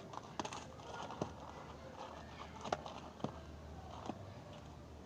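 About five short, sharp clicks and taps, spaced irregularly, from small parts and tools being handled during a washing-machine capacitor repair.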